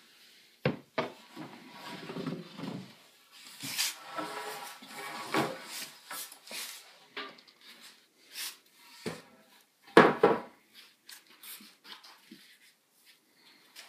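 Wooden boards knocking and clattering as lumber is handled, the loudest a heavy knock about ten seconds in as a 2x4 is laid on the floor.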